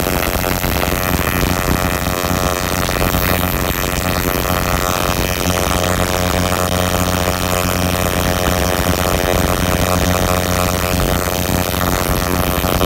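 Plasma ignition spark firing continuously across a spark plug with no ground electrode: a loud, steady electrical buzz from the rapid-fire plasma discharge.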